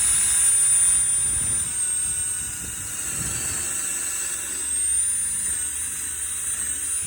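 Battery-powered cordless drill running continuously under the trigger with a high motor whine and hiss, its pitch sagging and recovering under load as it bores a countersink or drives a screw into wood; it stops abruptly near the end.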